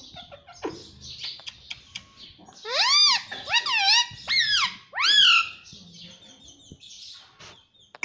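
Indian ringneck parakeet chattering softly with small clicks, then four loud calls in a row from about the third second, each rising then falling in pitch, before dropping back to quiet chatter.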